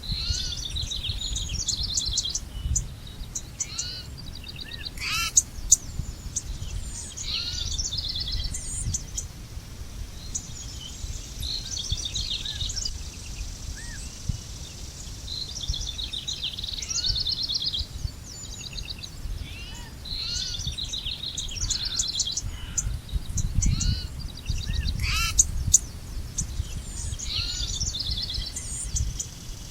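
Songbirds singing outdoors: short phrases of quick repeated chirps and trills, one after another, over a steady low rumble.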